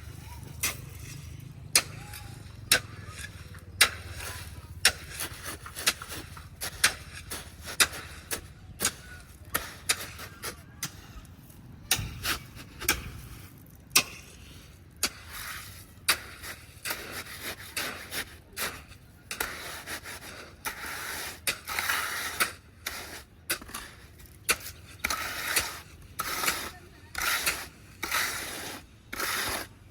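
Tools knocking and scraping on wet concrete as it is placed and spread to fill a gap in a slab: sharp knocks about once a second at first, then longer scraping strokes from about halfway through.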